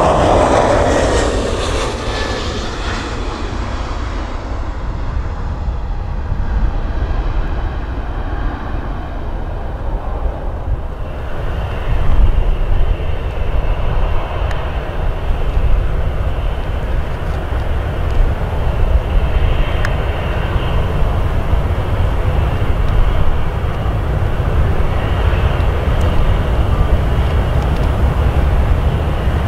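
Airbus A320neo-family jet airliner taking off, its engine whine falling in pitch and fading over the first few seconds as it climbs away. About eleven seconds in, steady jet noise from a three-engined business jet on approach, over a heavy wind rumble on the microphone.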